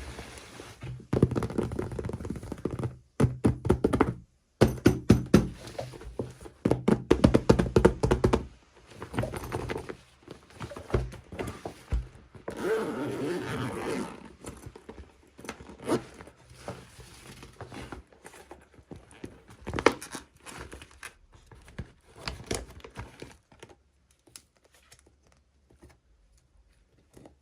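Hands unboxing small plastic toys: a run of clicks, knocks, scrapes and crinkles from packaging and pieces being handled, dense at first and thinning out near the end.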